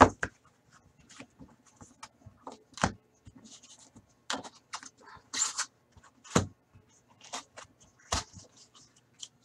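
Hands handling a small cardboard hockey card box and the cards inside: scattered sharp taps and knocks, the loudest right at the start, with a brief rustle about five seconds in.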